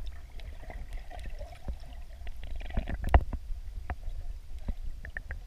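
Water moving against a camera held underwater: a steady muffled low rumble with scattered small clicks and knocks, the loudest knock about three seconds in.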